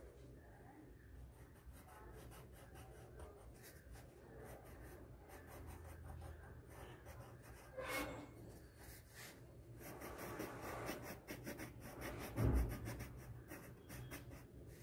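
Yellow colored pencil scratching across paper in quick repeated shading strokes. A short dull thump about twelve seconds in.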